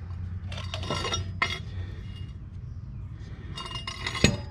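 Light metallic clinks and rattles of small hardware handled by hand (a mower-blade bolt, metal spacers and the brush cap of an anti-seize jar), in a few short clusters, with a sharper knock near the end.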